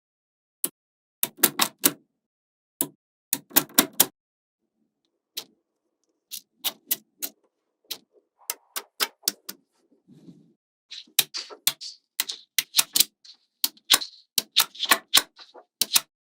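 Small magnetic balls clicking as they snap together, sharp irregular clicks in quick clusters of two to four with short silent gaps between. In the last few seconds the clicks come thicker, with a light rustle between them.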